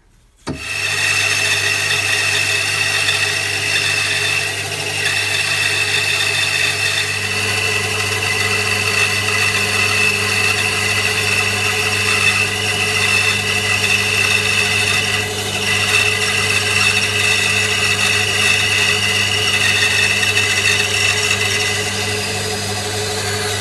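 Electric power tool motor running at one steady pitch with a constant hum. It starts abruptly about half a second in and stops just before the end.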